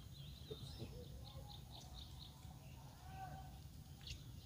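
Small birds chirping faintly: a quick run of short, high chirps, about three a second, then a softer lower call, over a steady low background hum of the open air.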